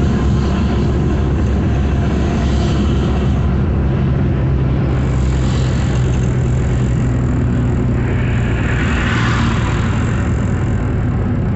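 Engine drone and tyre noise heard from inside a vehicle's cab cruising at highway speed, steady and low. A rushing swell about eight seconds in as a car passes alongside.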